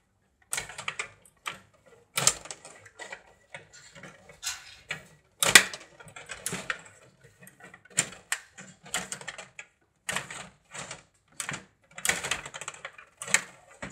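Table hockey game in play: rods sliding and turning in their slots and player figures striking the puck, making rapid irregular clicking and clacking with a few louder knocks.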